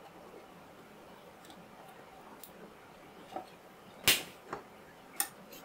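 A few light clicks and taps as a small plastic sun visor is handled and pressed into a scale model car's roof liner, the sharpest click about four seconds in, over quiet room tone.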